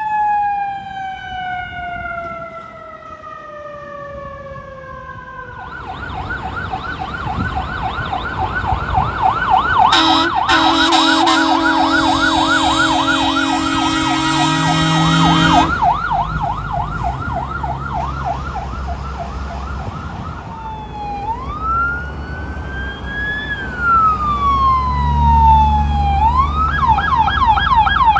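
Fire truck sirens on an emergency run. A siren winds down, falling steadily in pitch for about five seconds. Then a fast yelp takes over, with an air horn blast of about five seconds in the middle, a slow rising and falling wail, and the yelp again near the end, over diesel engine rumble.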